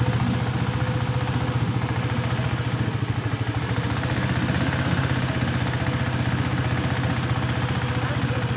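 Small boat's engine running at a steady speed, with a fast, even chugging pulse.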